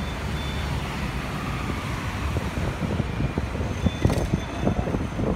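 City street traffic noise: a steady low rumble of passing vehicles, with irregular crackling knocks joining in during the second half.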